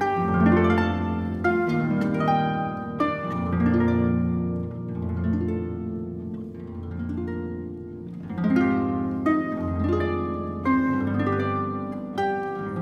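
Solo concert pedal harp playing: plucked notes and chords ringing on, growing softer and sparser midway and fuller again about two-thirds of the way through.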